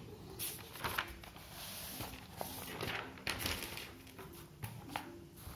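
Faint rustling and scattered light knocks of a paper notebook being handled and its page turned.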